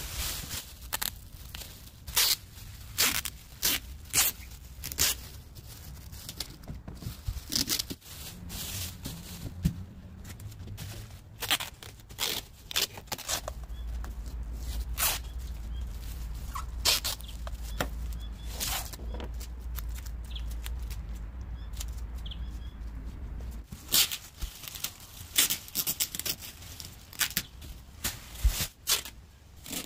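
Thin plastic masking sheet crinkling and rustling in sharp, irregular crackles as it is handled and smoothed over a car's windows. For about ten seconds in the middle, a steady low rumble runs underneath.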